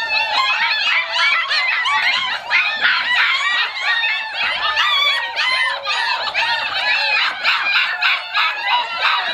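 Several 40-day-old German Shepherd puppies yelping and whining, many high-pitched cries overlapping without a break.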